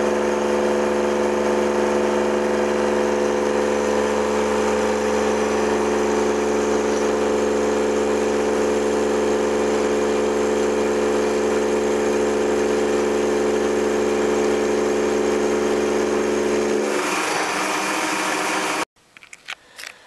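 CNC milling machine with an end mill cutting a metal block held in a vise: a loud, steady whine of several even tones over a low hum, unchanged through the cut. It cuts off abruptly near the end, leaving only a few faint clicks.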